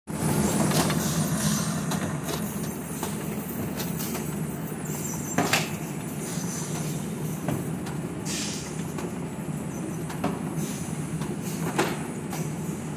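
Conveyor line in a date-packing plant running with a steady mechanical hum and rattle. A few sharp knocks and clatters cut through it, the loudest about five and a half seconds in, and there is a short hiss a little later.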